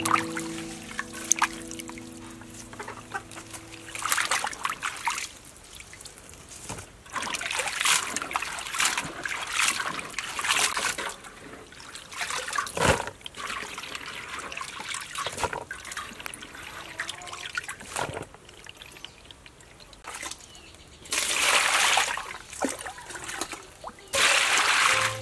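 Water sloshing and splashing in a basin as vegetables and squid are washed by hand, in several bursts with quieter trickling between, and one sharp click about halfway through.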